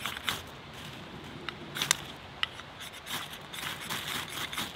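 Knife spine scraping down a ferro rod, a series of sharp rasping strikes coming faster near the end, throwing sparks onto a tinder bundle to light a fire.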